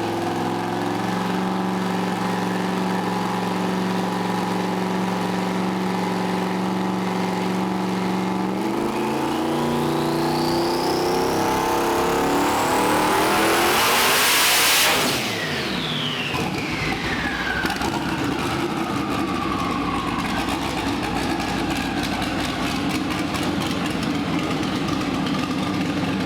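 Twin-turbo LS V8 making a full pull on a hub dyno. The engine is held at a steady speed for about eight seconds, then the revs climb with a rising turbo whine for about six seconds to a peak. The throttle is then let off suddenly, and the turbos spool down with a falling whistle as the engine settles back to a steady run.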